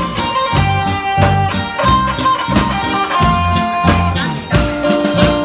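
Live band playing an upbeat song: drum kit keeping a steady beat under electric guitar, bass guitar and keyboard, with a held melody line on top.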